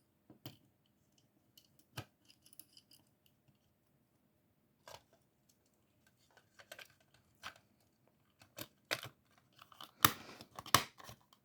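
Scattered small clicks and taps from handling the radio kit's plastic case parts and screws, with a louder cluster of sharp clacks near the end.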